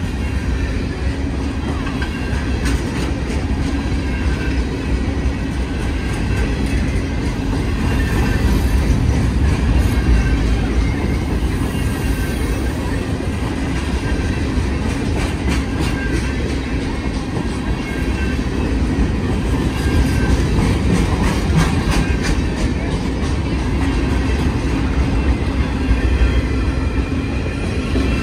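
Freight train boxcars rolling past: a steady, loud rumble of steel wheels on rail, with repeated clicks as the wheels run over rail joints.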